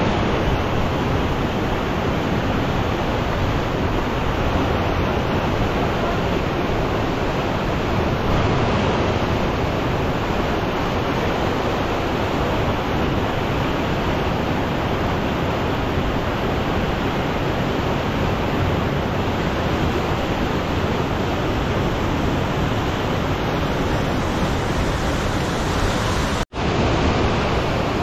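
Fast whitewater river rapids rushing steadily, a loud, even wash of water noise. It drops out for an instant near the end, then resumes.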